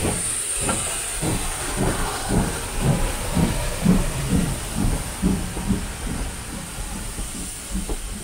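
Steam locomotive working past at close range: rhythmic exhaust chuffs, loudest about four seconds in, over a steady hiss of escaping steam.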